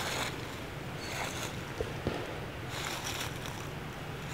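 Tree foliage rustling in short bursts over a steady low rumble of wind, with two small snaps about two seconds in.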